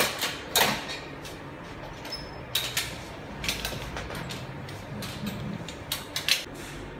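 Handling noise: a scattering of short, sharp clicks and knocks, about ten in all, from hands on the control box, its cables and the tabletop. The loudest come right at the start and about half a second in.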